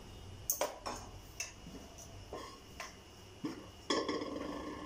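A metal spoon clinking and tapping against a metal cooking pot and utensils, several separate taps, then a longer scrape near the end.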